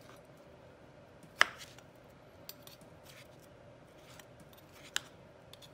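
Chef's knife slicing soft braised carrot on a plastic cutting board: a few sharp taps as the blade meets the board, the loudest about a second and a half in and another near the end.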